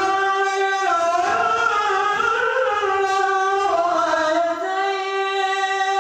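An imam's solo voice chanting Qur'anic recitation in one long melodic phrase, the pitch wavering and bending as the notes are drawn out.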